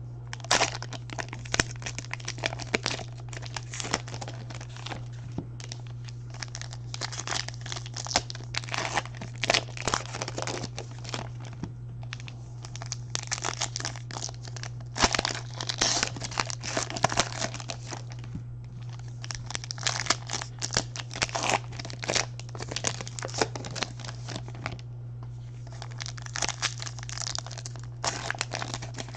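Plastic and foil wrapping on packs of baseball trading cards being torn open and crumpled by hand, in irregular bursts of crinkling, over a steady low hum.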